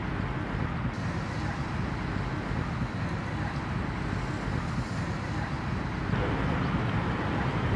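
Steady outdoor city ambience: a low, even rumble of distant traffic and engines, growing slightly louder near the end.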